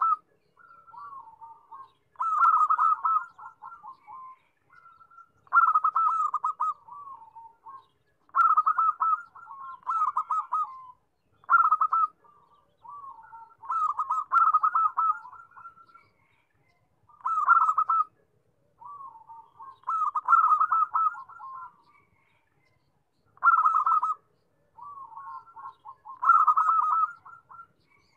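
Zebra dove (perkutut) singing: repeated phrases of rapid, staccato coos, a loud phrase about every three seconds with softer trilled notes in between.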